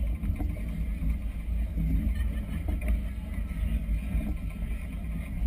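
Moderate wind buffeting a GoPro's microphone, a low, uneven rumble with no clear tone.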